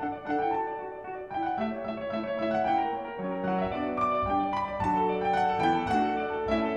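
Background piano music: a continuous flowing line of notes.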